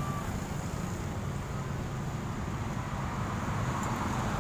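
Street traffic: a steady low engine hum as motorcycles and cars pass along the road.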